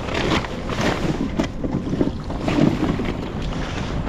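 Wind buffeting the microphone over choppy sea water sloshing around a kayak, with uneven surges and a few short knocks.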